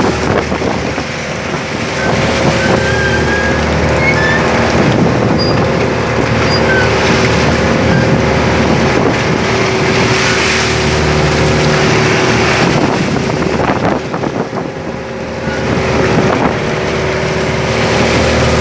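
A fishing boat's engine running steadily, with wind buffeting the microphone and the sea washing around the hull.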